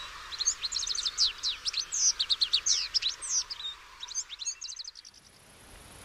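Red-backed shrike singing: a chattering run of quick, varied short notes that include imitations of other sounds. It breaks off about five seconds in.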